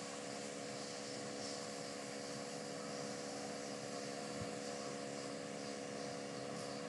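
Steady background hum and hiss: room tone with a mains-like hum, and a faint tick about four and a half seconds in.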